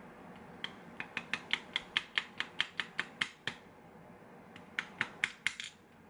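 Quick sharp metallic clicks from a GeGe lock being worked with picking tools, about five a second in one long run, then a shorter run a second later.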